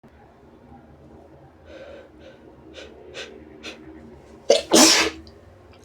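A person sneezes once, loudly, about four and a half seconds in, after a few short, catching intakes of breath.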